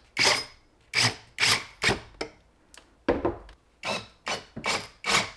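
Cordless 20-volt drill driving screws through a metal battery-mounting bracket into plywood, in about a dozen short bursts of a second or less with pauses between.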